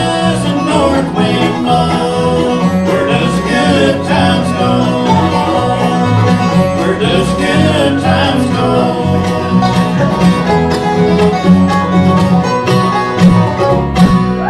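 Bluegrass band playing an instrumental passage, with banjo, guitar and fiddle over a steady bass line.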